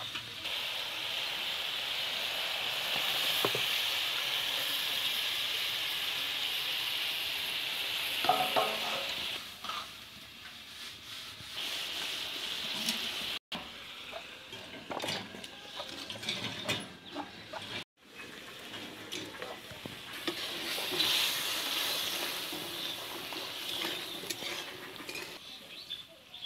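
Chopped tomatoes frying in hot oil in a metal kadai, a steady sizzle, with a metal spatula scraping and clinking against the pan as they are stirred. The sizzle drops away in the middle and comes back strongly near the end.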